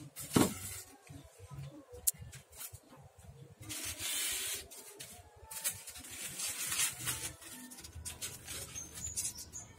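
Styrofoam lining sheets handled and pressed against the wooden sides of a tub: a sharp knock about half a second in, scattered small clicks, and foam rubbing and scraping against wood, loudest around four seconds in.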